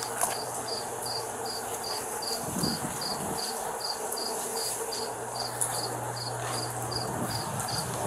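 Cricket chirping steadily, nearly three short high chirps a second, over a low steady hum.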